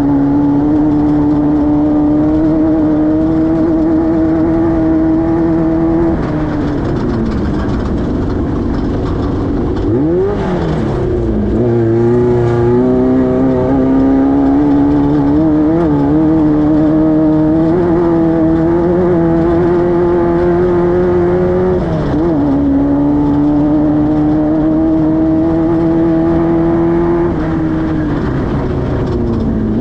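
Class 5-1600 race car's air-cooled 1600 cc Volkswagen flat-four running hard at a steady high pitch. Several times the pitch drops and then climbs back, as the throttle comes off and goes back on.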